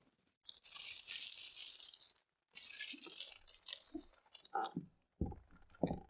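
Clear plastic bag crinkling and rustling as it is pulled off a plastic-bodied water heater, in two long stretches, followed by a few short knocks and clicks from handling the unit near the end.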